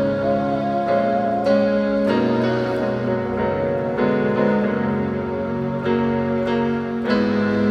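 Yamaha portable keyboard playing a slow worship chord progression, moving through chords such as G major and D diminished seventh. The sustained chords change every second or so.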